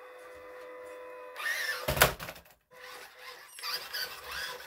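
Small brushed electric motor of a 1/12 MN78 Cherokee RC crawler whining steadily as it crawls up a carpeted ramp. A loud knock comes about two seconds in, followed by scuffing and rustling noises.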